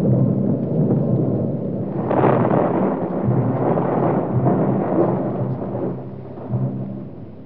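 A deep rumble swells about two seconds in and fades away after about five seconds, over a steady low humming drone on the soundtrack.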